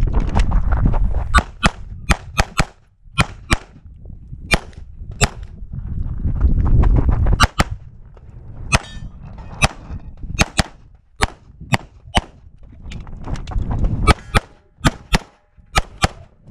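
Walther PDP SF 9mm pistol fired in rapid pairs and short strings, about two dozen shots, with a low rumble rising and falling between strings.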